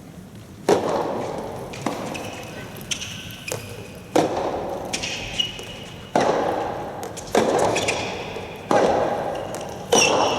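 Soft tennis rally: a rubber soft-tennis ball struck back and forth by rackets about once a second, with smaller ball bounces between the hits. Each hit echoes on in a large hall.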